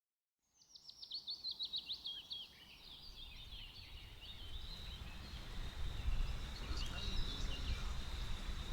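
A bird sings a quick trill of short, falling high notes for about two seconds, followed by a low outdoor background rumble with a steady high-pitched tone running through it.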